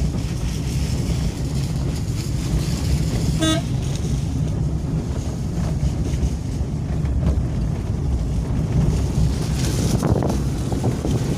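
Car engine and tyre noise heard from inside the cabin while driving, a steady low rumble. A short horn beep sounds about three and a half seconds in.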